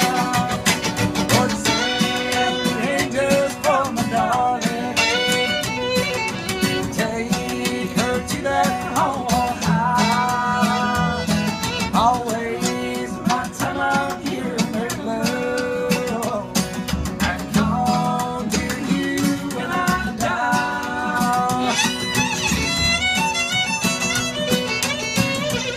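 Live bluegrass band playing an instrumental break: a bowed fiddle carries the melody over acoustic guitar and mandolin chords and upright bass.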